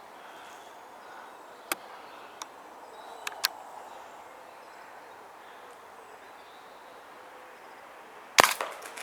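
Walther Rotex RM8 .22 air rifle firing a single shot near the end, a sharp crack followed by a brief clatter. A few light clicks come earlier.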